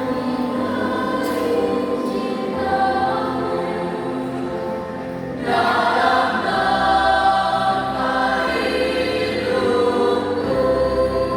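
Mixed school choir singing in several parts, with a fuller, louder entry about five and a half seconds in.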